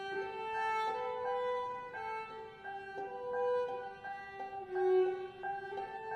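Violin and cello playing sustained bowed notes together in a slow chamber-music passage, the notes changing about once a second.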